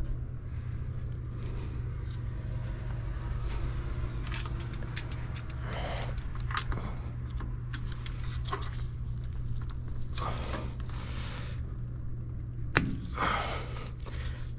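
Metal clinking and rattling of drum-brake hardware as a brake shoe spring is stretched with vise grips and hooked into place, with one sharp click near the end. A steady low hum runs underneath.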